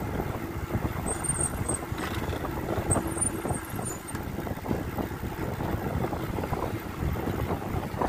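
Vehicle engine and road noise while riding, with wind rushing over the microphone.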